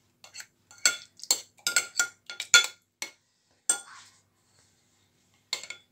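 Metal spoon clinking and scraping against a ceramic bowl while scooping tomato sauce: a string of short sharp clinks with a brief ring, with a pause of about a second and a half before a last clink near the end.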